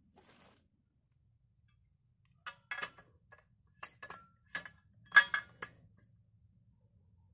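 Stihl 070 chainsaw, not running, being handled and set on a log: about half a dozen sharp metallic clicks and knocks over some three seconds, starting about two and a half seconds in and loudest a little past five seconds in.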